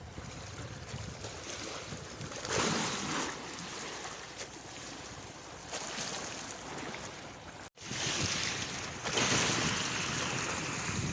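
Sea waves washing on a beach with wind buffeting the microphone, swelling louder twice, once about two and a half seconds in and again near the end, with a brief cut in the sound partway through.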